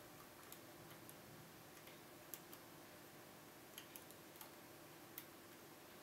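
Light, scattered metallic clicks, about nine, irregularly spaced, as a lock pick lifts the spring-loaded pin tumblers in the keyway of a Kaba Gege pExtra five-pin cylinder held under tension. A faint steady hum lies underneath.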